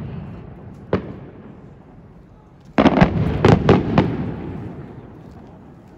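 Aerial fireworks shells bursting: a single bang about a second in, then a quick cluster of four or five bangs about three seconds in, each followed by a rolling rumble that slowly fades.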